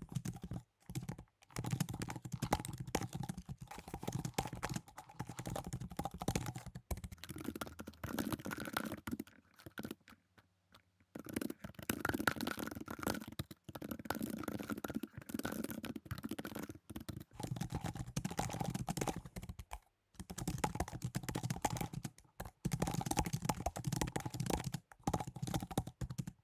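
Typing on a computer keyboard: rapid key clicks in runs, broken by a few short pauses.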